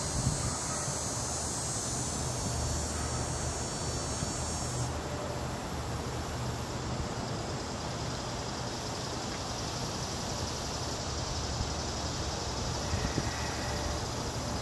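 Steady outdoor background noise: a low rumble with an even high hiss above it, the hiss changing abruptly about five seconds in.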